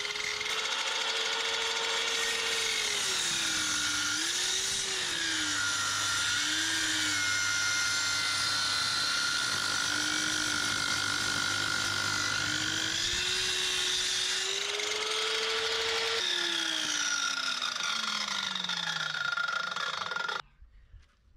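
Metabo sliding mitre saw running up to speed, its whine dropping and wavering as the blade cuts an angled end off a square timber beam, then climbing back once the cut is through. About 16 seconds in the motor is switched off and winds down with a falling whine.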